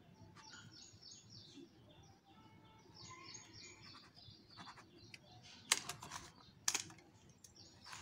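Faint ballpoint pen scratching across paper as a heading is written and underlined, with faint bird chirps in the background. Two sharp clicks come a second apart, a little past the middle.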